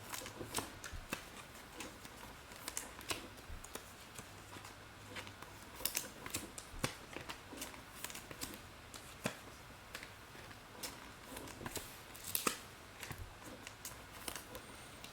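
Scattered light clicks and small handling rustles, irregular, up to a few a second, as small objects are handled on a desk.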